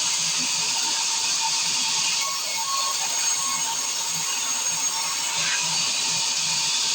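Circular sawmill blade running and cutting pine, a steady high-pitched whine and hiss.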